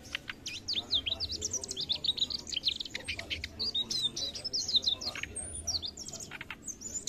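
Male mugimaki flycatcher singing a fast, rambling stream of high, sharply falling chirps and twitters, with a few sharp clicks among them. The song thins out over the last couple of seconds.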